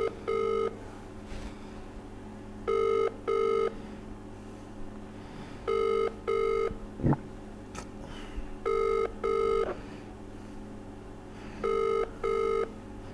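Telephone ringback tone: five pairs of short steady beeps, one pair about every three seconds, the double-ring cadence of an Indian ringback as an outgoing call rings unanswered. A steady low electrical hum lies beneath, with one short falling chirp about seven seconds in.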